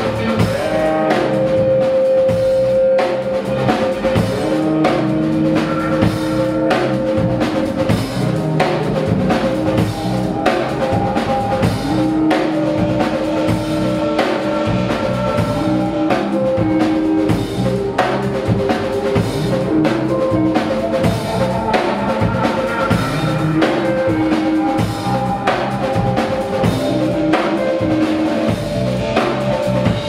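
Live rock band improvising: a drum kit keeps up a busy beat while electric guitars hold long, sustained notes over it.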